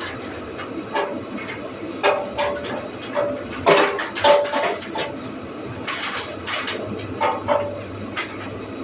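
Sawmill sticker belt and planer machinery running, with irregular wooden knocks and clatter and short squeaks over a steady machine noise. The clatter is heaviest about two and four seconds in.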